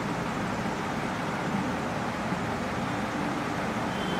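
Steady background noise, an even hiss with no speech and no distinct events.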